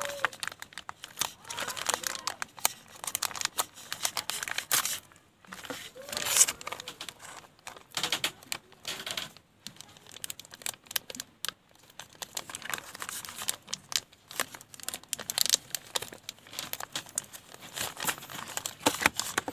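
Plastic courier mailer envelope being torn open by hand along its sealed edge, with irregular crackling, crinkling and tearing rustles throughout.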